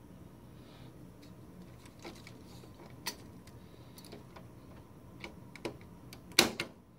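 Plastic clicks and light knocks from the print head locking cover of a Canon G1000 ink-tank printer as it is pressed down over the print heads, ending in one loud snap about six seconds in as it latches shut.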